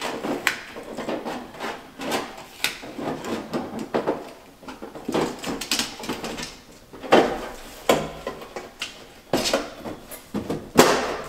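Irregular wooden knocks, clacks and scrapes from building materials being handled and fitted against kitchen cabinets, several of them sharp and loud.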